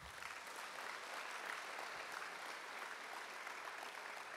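Audience applauding, a steady dense clapping.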